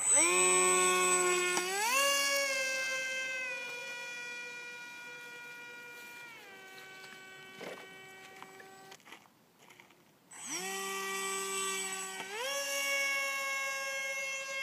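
Electric motor and propeller of a foam RC model jet whining as it spins up. The pitch steps up and then down several times as the throttle is changed. It fades out about nine seconds in, then spins up again with a rising whine and holds a steady high pitch.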